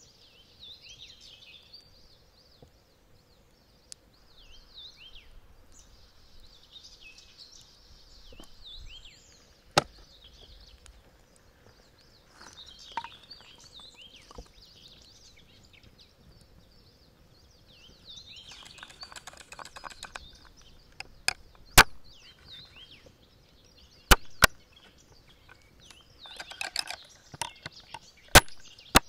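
Small birds chirping and singing throughout, with a handful of sharp knocks or chops. Single knocks come about ten and twenty-two seconds in, a quick pair around twenty-four seconds and more near the end, and there are two short stretches of rattling or rustling.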